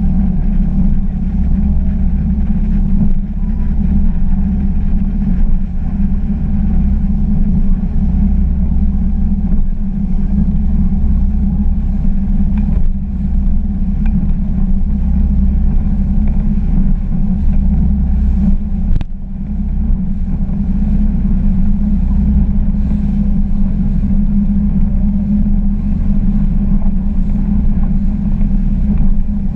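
Glastron GS205 bowrider under way across choppy water: a loud, steady low engine drone mixed with rushing wind and water. About two-thirds of the way through comes a single thump, with a brief dip in level.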